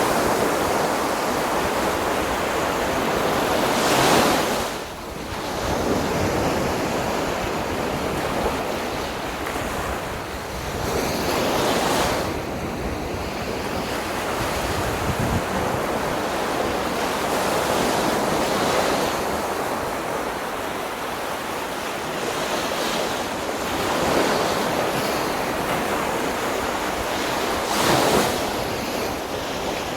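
Sea waves breaking on a beach: a continuous rush of surf, swelling three or four times as bigger waves crash and wash up.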